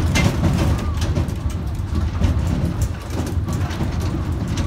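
Park mini train running along, heard from aboard: a steady low rumble with scattered short clicks.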